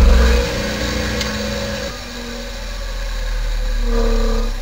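Mechanical whirring and rumbling sound effect played through the auditorium speakers: a heavy deep rumble that eases off about half a second in, with humming tones that shift in pitch.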